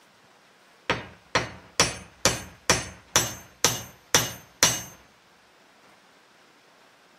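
Nine sharp strikes, about two a second, driving a hatchet head down onto its new wooden handle to seat it, each blow with a short metallic ring from the steel head.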